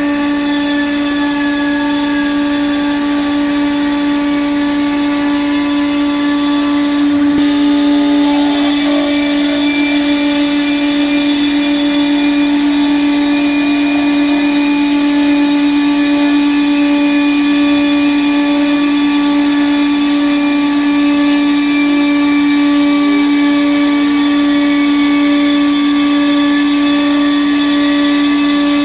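CNC router spindle cutting a line drawing into an MDF sheet: a loud, steady high whine that rises a little in level about seven seconds in.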